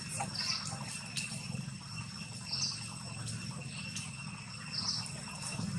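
Insects droning steadily on several high pitches, with a short high chirp that repeats about every two seconds, over a low even hum.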